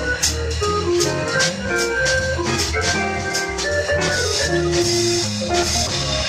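Live jazz organ trio playing: a Hammond organ holding chords and melody lines over low bass notes, with a drum kit's cymbal strikes and an electric archtop guitar.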